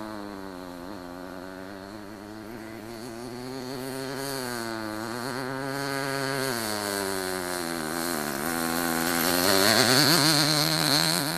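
The Enya .19 two-stroke glow engine of a 1/8-scale RC engine buggy running, its pitch rising and falling with the throttle as the buggy drives. It grows louder near the end as the buggy passes close by.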